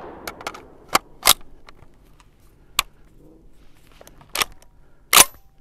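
Rock Island Armory VR80 12-gauge shotgun being loaded: a scatter of short, sharp clicks and clacks as a drum magazine is seated and the gun is handled, the loudest clack near the end.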